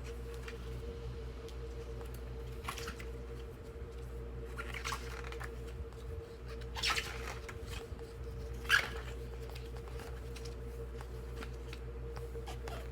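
Glossy photo book pages being handled and turned: about four brief paper rustles, the loudest near the end, over a steady low hum.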